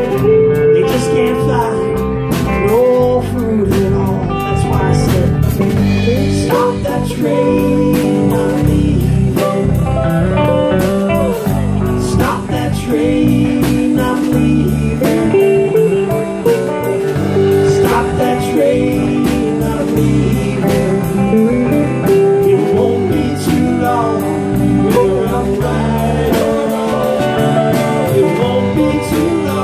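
A live band playing with electric guitars and a drum kit through amplifiers, with a man singing lead.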